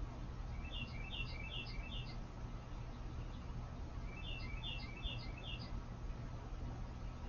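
A small songbird calling in two quick runs of four or five chirps each, over a steady low hum.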